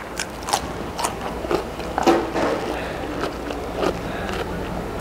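Close-up mouth sounds of someone biting and chewing a crisp raw vegetable, a string of sharp crunches about two a second.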